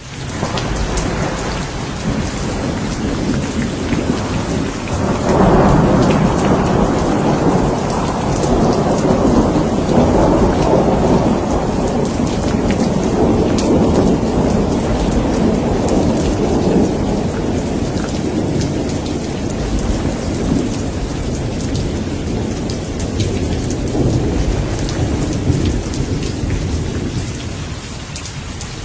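Heavy rain falling steadily in a thunderstorm, with a long rolling rumble of thunder that swells about five seconds in and slowly fades away.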